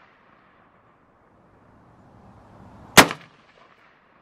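A single shot from a Palmetto State Armory AK-P pistol about three seconds in, with a short echo trailing after it.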